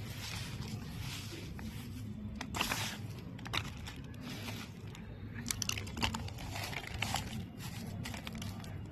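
Irregular crinkling, scraping and crackling of a craft material being worked by hand into shapes, with a few louder crunches, over a steady low background rumble.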